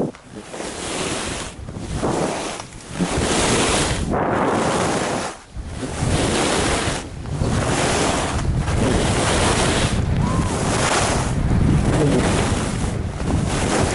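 Skis hissing over groomed snow with wind rushing across the camera microphone. The sound swells and eases roughly every second and a half as the skier links turns downhill.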